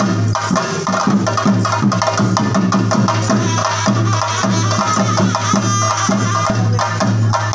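Chenda drums beaten with sticks in a fast, dense, unbroken rhythm: the ritual drumming that drives a theyyam dance. A steady low hum runs underneath.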